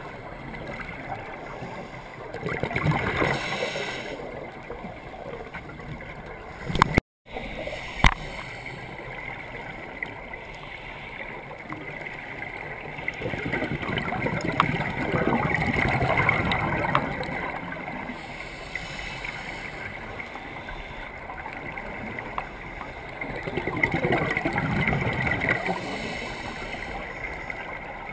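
Muffled underwater water noise from scuba divers, with three long swells of bubbling as they exhale through their regulators. Two sharp knocks come about seven and eight seconds in, with a brief dropout between them.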